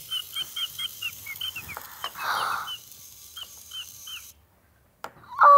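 Electronic toy chick from a Little Live Pets Surprise Chick egg cheeping as it hatches out of its shell: a quick run of short, high peeps, then a few more about three seconds in. A short rustling noise comes about two seconds in, and just before the end a loud, steady held tone begins.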